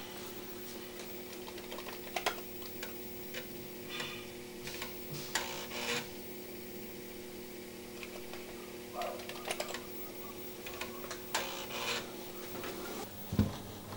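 Commodore 1571 floppy drive running, its spindle motor humming steadily: the fault under repair, a motor that keeps spinning when it should stop. Short bursts of mechanical clicking and rattling come over the hum now and then, and the hum stops near the end.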